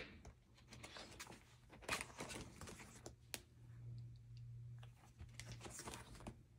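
Pages of a disc-bound paper planner being turned by hand: faint paper rustling and a few soft clicks, over a low steady hum.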